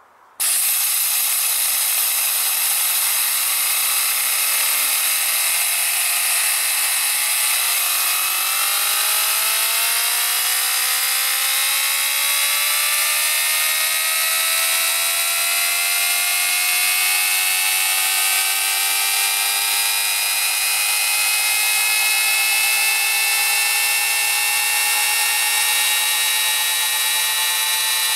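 Compressed air hissing into a Tesla turbine that spins up a 110 volt electric generator: a loud steady hiss starts abruptly, with a whine that climbs in pitch, quickly at first and then more slowly as the turbine gathers speed.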